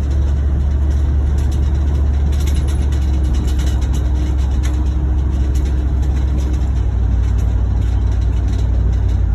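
Truck driving along, heard from inside the cab: a steady, loud low rumble of engine and road noise.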